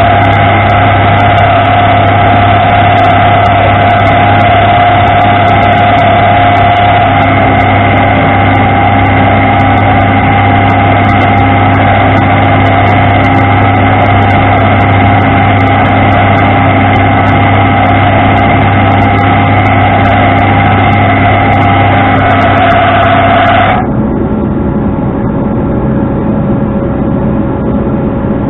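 Tow truck engine running steadily with a strong low hum and a few fixed tones. About 24 seconds in, the sound drops abruptly to a quieter, lower running sound.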